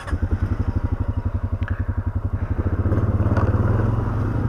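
Single-cylinder Honda ATV engine running with an even, slow beat, then speeding up about two and a half seconds in as the quad moves off.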